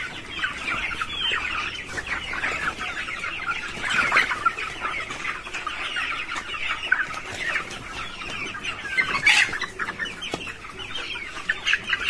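A flock of month-old broiler chickens calling all at once, a steady chatter of many short, overlapping clucks and peeps.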